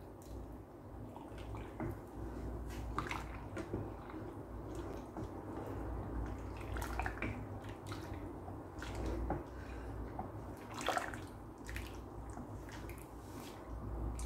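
Wooden spatula stirring a thin gelatin mixture in a rice cooker's inner pot: liquid sloshing, with irregular clicks and scrapes of the spatula against the pot.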